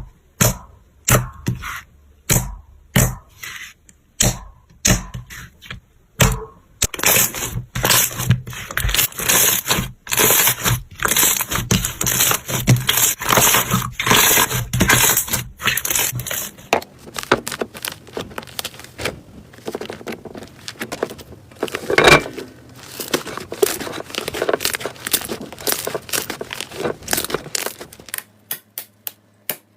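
Slime being squeezed and stretched by hand, making crackling, popping sounds. It starts with separate pops about twice a second, then turns into a long run of dense crackling, thins out with one louder crack, and ends with a few spaced pops.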